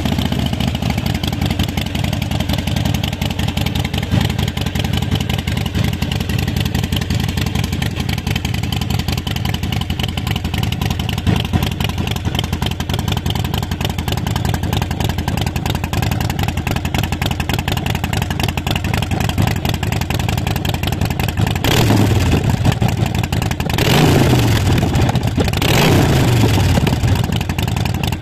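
Harley-Davidson Forty Eight's air-cooled 1200 cc Evolution V-twin running through Vance & Hines Short Shots staggered exhaust, heard close to the tips: a steady idle, then three quick throttle revs about two seconds apart near the end, each rising and dropping back to idle.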